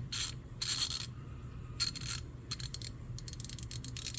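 Fine-tooth dual-pawl hand ratchet (DuraTech low-profile) being ratcheted: a few scraping strokes, then a fast run of fine clicks in the second half as the mechanism spins freely.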